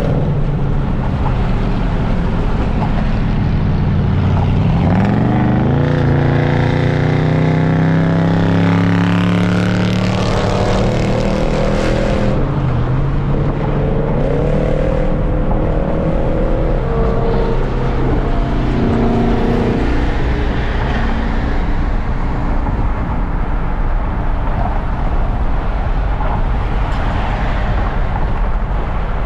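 V8 muscle-car engine accelerating hard about five seconds in, its pitch sweeping up and then holding for several seconds, with a second, shorter pull later. Steady tyre and wind noise run underneath, heard from inside a moving car.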